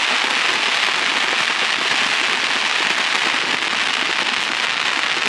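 Dense, continuous crackling of firework crackle stars, the gold glitter kind, bursting overhead, with no single big bang standing out.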